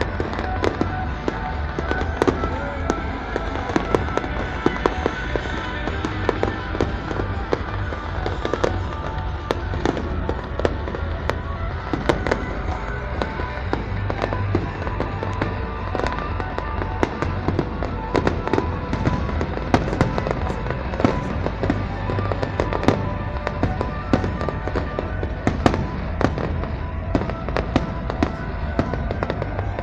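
Aerial fireworks display: shells bursting in a steady stream of irregular booms, bangs and crackles. Music plays underneath.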